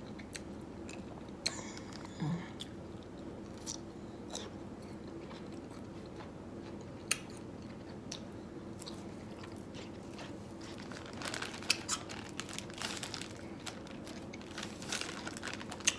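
A person chewing and smacking on a Kool-Aid-soaked dill pickle: crunching bites and scattered wet mouth clicks, busiest about two-thirds of the way through. A plastic bag rustles near the end.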